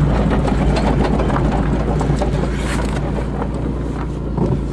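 An old Toyota car's engine and running gear while driving, heard from inside the cabin: a steady low rumble with dense fine rattling over it.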